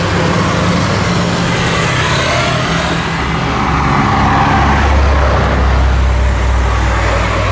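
Jet airliner engine noise close by, swelling to its loudest about five seconds in and easing off near the end, with a low steady hum underneath.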